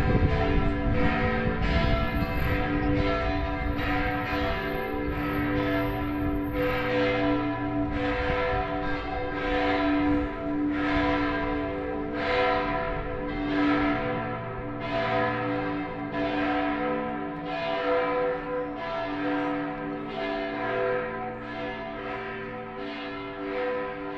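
Matera Cathedral's church bells pealing: repeated strikes, roughly one to two a second, over overlapping ringing tones that hang on between strokes.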